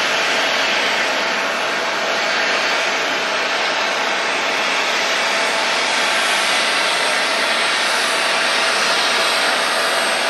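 Boeing 767 jet engines running at idle: a steady loud rush with a thin high whine over it that grows stronger about halfway through.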